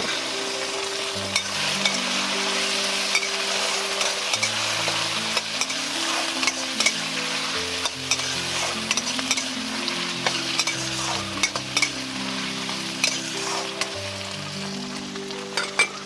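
Food sizzling in a hot pan while it is stirred, with frequent sharp clicks and scrapes of a utensil against the pan.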